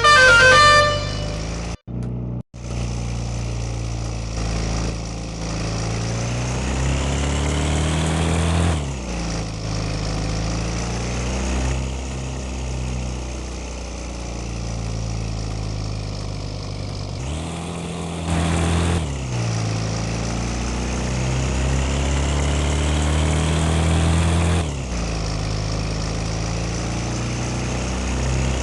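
A telolet bus horn's melody ends about a second in, followed by a bus's diesel engine pulling away. Its pitch climbs steadily, then drops sharply and climbs again, three times, as it shifts up through the gears.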